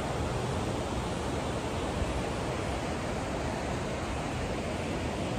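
Steady rushing of a mountain river, an even wash of water noise.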